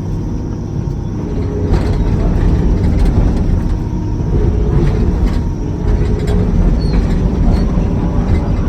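Doosan DX300LCA excavator's diesel engine running under hydraulic load as the machine is worked, getting louder about two seconds in. The machine is responding well after repair of its Kawasaki K3V hydraulic pump.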